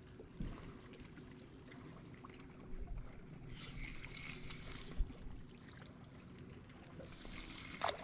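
A boat on the water: a faint, steady low rumble with a hissy, splashy stretch around the middle, a few dull knocks, and a sharper knock near the end.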